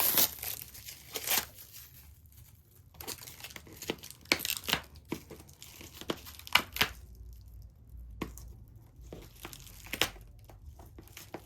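Packaging being torn and crinkled by hand, in irregular bursts of ripping and rustling with a quieter pause in the middle.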